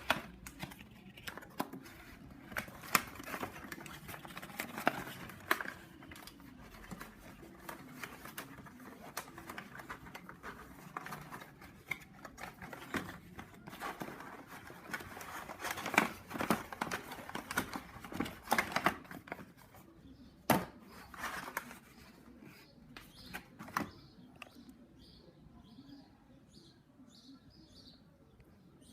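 Handling of a phone case's packaging: irregular rustling with scattered sharp clicks and taps, quieter over the last few seconds.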